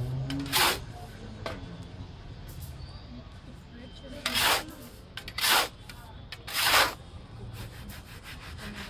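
Hot sand and peanuts being swept and scraped around a large metal kadhai with a scoop while the peanuts roast. There are four loud rasping sweeps, with fainter gritty scraping between them.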